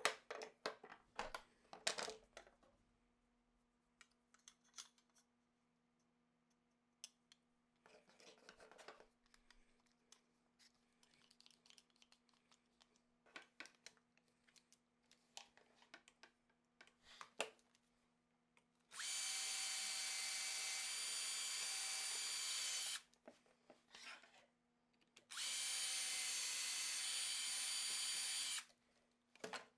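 An electric drill runs twice at steady speed, about four seconds and then about three seconds, with a whine over the noise of its motor. Before that come scattered light clicks and knocks of tools and wood being handled.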